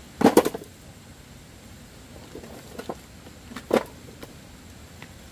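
A quick cluster of sharp knocks, followed by a few lighter knocks about three seconds in and again just before four seconds.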